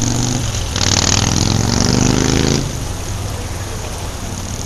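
Wet night city street: a steady low engine hum under the hiss of rain. About a second in, a vehicle accelerates with a loud hiss and an engine note rising in pitch for about two seconds, then cuts off sharply.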